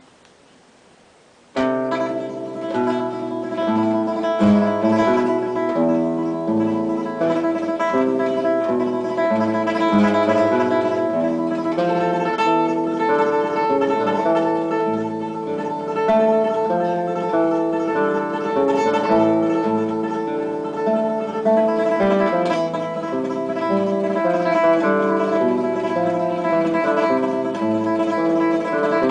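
Acoustic guitar music with plucked notes, starting suddenly about a second and a half in.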